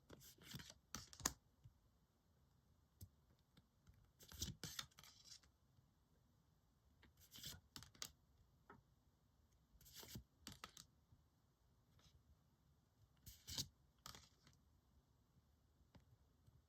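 Trading cards from an opened booster pack sliding and rubbing against each other, one at a time: five short, papery rustles about three seconds apart.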